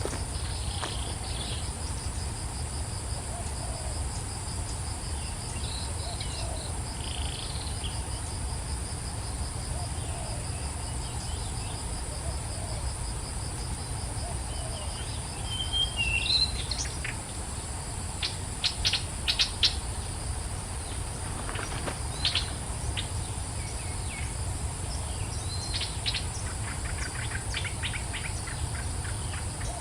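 Steady insect chorus of crickets, a constant high-pitched trill, with wild birds calling over it. In the second half the birds give a gliding call and then runs of quick, sharp chirps.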